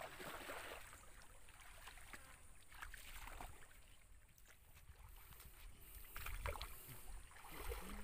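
Faint sloshing and splashing of muddy pond water as people wade and feel about with their hands, in short irregular splashes.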